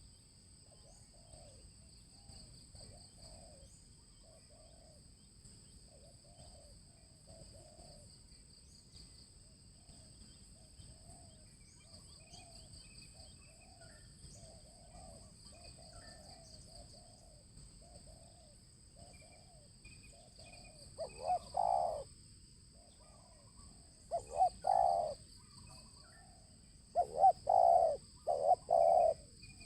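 Spotted doves cooing: soft, more distant coos keep repeating, then from about two-thirds of the way in a dove coos loudly and close in short repeated phrases.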